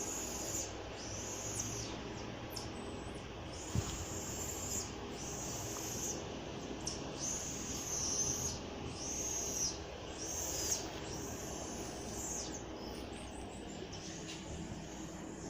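An animal calling over and over in high-pitched chirps, each about half a second long, about one a second, over a faint steady hum.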